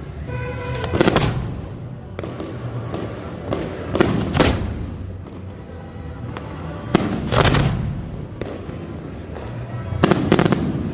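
Fireworks bursting: four loud booms about three seconds apart, each followed by crackling, with scattered smaller pops and crackles between them.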